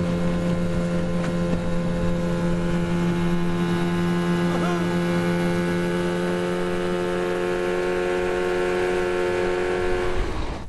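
Boat engine running at a steady speed: an even hum made of several tones that holds without change and cuts off near the end.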